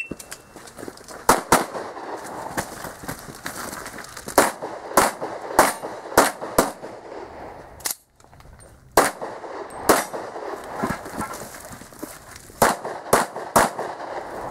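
Handgun shots fired in quick strings, many of them close pairs: an IPSC competitor shooting a course of fire.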